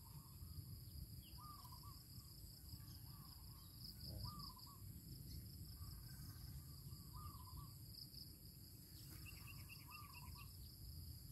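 Faint rural outdoor ambience: insects chirping steadily in a high, pulsing drone, while a bird repeats a short falling call about once a second, over a low background rumble.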